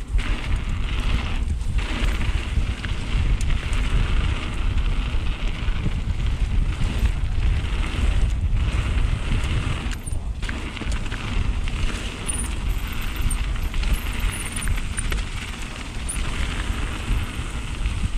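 Mountain bike riding fast down a wet, rough trail: tyres rushing and hissing over the ground, with heavy wind buffeting on the microphone. The hiss drops out briefly three times.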